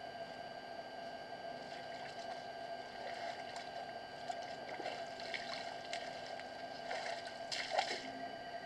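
Elephant splashing and sloshing water at a waterhole in short irregular bursts, loudest a little before the end.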